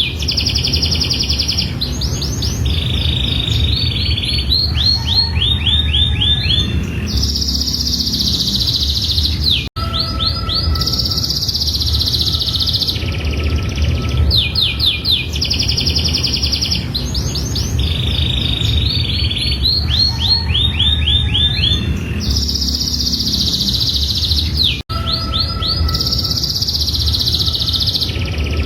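Domestic canary singing a long, unbroken song of rapid high trills and rolling phrases over a steady low rumble. The same stretch of song repeats about every fifteen seconds, with a brief break twice, where the recording loops.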